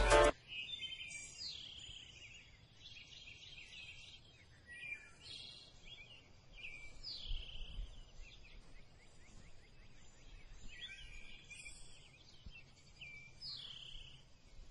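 Bird calls: a series of short, high, downward-slurred notes, repeating every couple of seconds over faint background noise.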